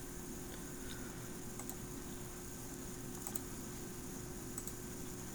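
A few faint, scattered computer keyboard clicks over a steady electrical hum and hiss.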